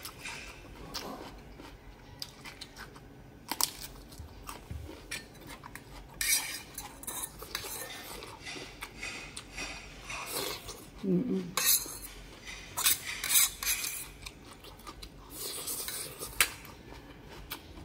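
Metal fork scraping and clinking against a thin gold-coloured metal noodle pot as noodles are gathered up. The scraping comes in several bursts, with quieter stretches between.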